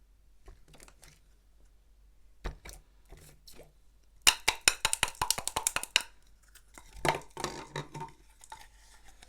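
Iceberg slime's hardened crust crackling as it is pressed, a rapid run of sharp clicks and pops. The crackling is faint at first, loudest from about four to six seconds in, and comes again around seven seconds.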